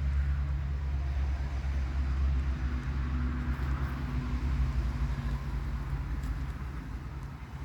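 A motor vehicle engine running: a steady low rumble with a hum, easing off a little near the end.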